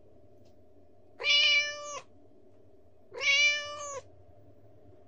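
Kitten meowing twice, each meow a steady pitched call just under a second long, about two seconds apart.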